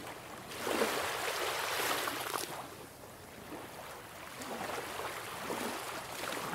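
Ocean surf: waves breaking and washing up the beach, a rushing hiss that swells about half a second in, eases off, and swells again near the end.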